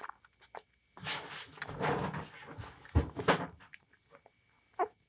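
Two-week-old German Shorthaired Pointer puppy suckling hard from a bottle, making little oink-like grunts with wet smacking clicks, busiest in the middle of the stretch. A soft bump comes about three seconds in.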